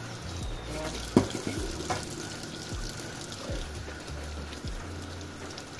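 Tap water running into a stainless steel sink while a spoon and cup are rinsed under it, with a sharp knock a little over a second in and a lighter one near two seconds.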